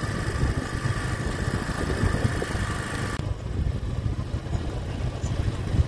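A vehicle on the move: engine and road noise as a steady rumble, with a higher hum in the noise that drops away about three seconds in.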